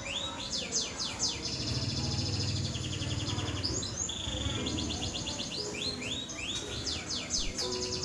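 Domestic canary singing: runs of rapid downward-sweeping notes alternating with fast, even trills.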